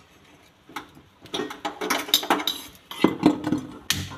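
A metal kadhai being handled and set on a gas stove: a string of clanks and clinks of metal on metal, loudest about three to four seconds in.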